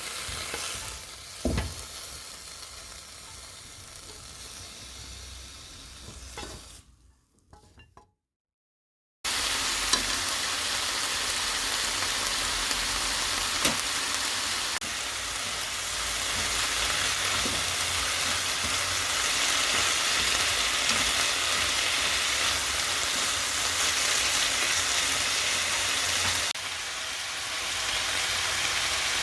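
Food sizzling in a hot frying pan while being stirred, with a few knocks of a utensil against the pan. The sizzling fades and cuts to silence about seven seconds in, then starts again louder about two seconds later and runs steadily.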